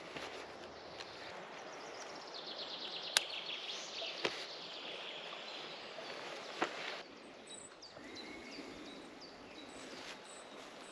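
Rustling and clicking of a hiker's backpack and chest-rig straps and pouches being handled, with birds singing in the background. About seven seconds in the handling stops, leaving a quieter forest background with short high bird chirps.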